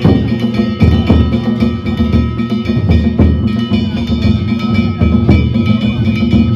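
Danjiri festival percussion: a large taiko drum beaten in heavy strokes about once a second, with brass kane gongs struck in quick strokes whose metallic ringing carries over the drum.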